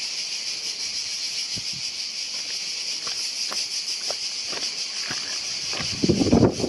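Cicadas shrilling in a steady high chorus, with footsteps in rubber clogs crunching on loose stones, louder near the end.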